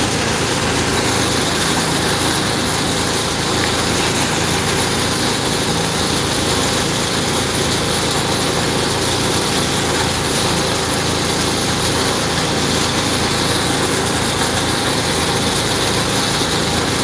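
Water tanker truck's engine idling steadily close by, with an even hiss over it, while the truck supplies a hose spraying water onto plants.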